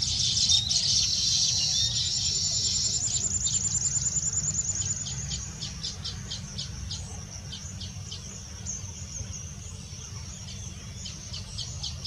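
Male baya weaver chattering: a fast run of dry, ticking chirps, then spaced chirps about three a second that fade after about seven seconds and return near the end. A steady low rumble runs underneath.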